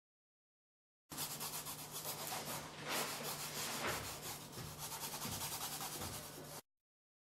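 Quick scratching, rubbing strokes of a drawing tool worked across paper, with a faint steady low hum beneath. It cuts in sharply about a second in and stops abruptly near the end.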